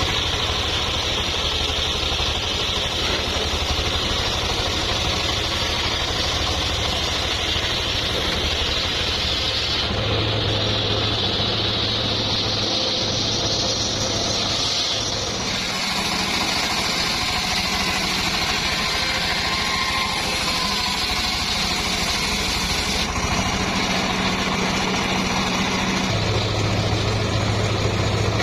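Engine-driven homemade circular sawmill running steadily while sawing teak logs. The engine hum holds even, while the higher cutting noise from the blade shifts every few seconds as the cuts change.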